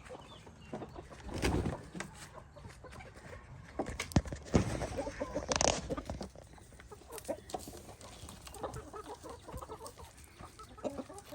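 Chickens clucking steadily over fresh grass clippings. A few sharp knocks and a louder burst of rustling come about four to six seconds in.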